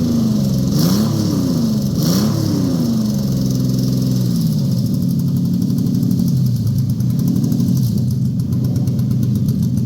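Toyota 1GZ-FE V12 engine revved in two quick blips, then settling back to idle with small rises and falls in speed.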